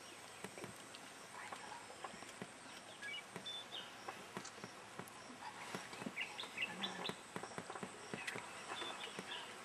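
Forest ambience: scattered short bird chirps, many small clicks and crackles, and a faint steady high-pitched whine.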